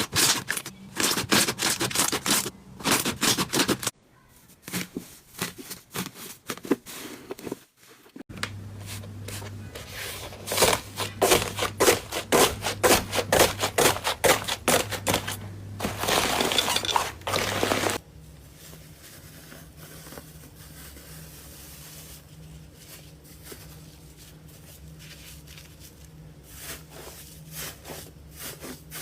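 Slime being squeezed and poked by hand, giving rapid runs of sticky clicks and crackles. The sound changes abruptly a few times and is quieter and sparser in the last third.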